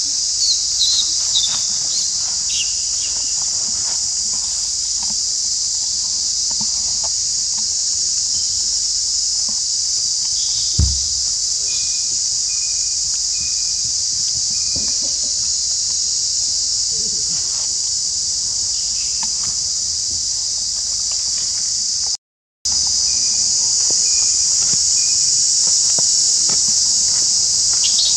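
Dense insect chorus: a steady high-pitched drone, with a few faint short chirps in the middle and a single low thump about eleven seconds in. All sound cuts out for a fraction of a second near the end, then the chorus resumes.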